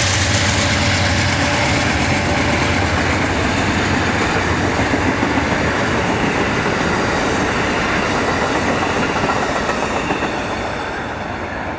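Amtrak passenger train accelerating out of a station, its Superliner bilevel cars rolling past on steel wheels, with the diesel locomotives' rumble pulling away. The noise is steady and eases a little near the end.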